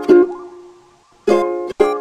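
Background music on a plucked string instrument: three chords, each struck and then ringing and fading away.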